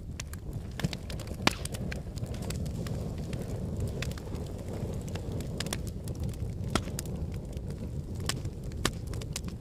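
Fireplace fire crackling: a steady low rumble with sharp pops at irregular intervals, the loudest about one and a half seconds in.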